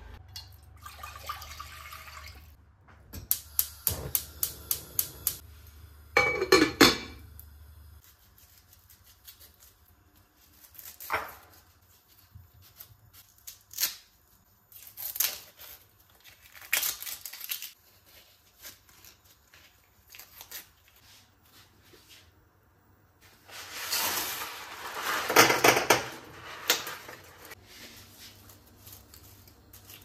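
Kitchen cooking sounds at a gas hob and counter: pots and utensils knocking, a quick run of about eight clicks a few seconds in, and scattered knife and onion-peeling noises. There are two louder clattering, rustling stretches, one after the clicks and one about three-quarters of the way through.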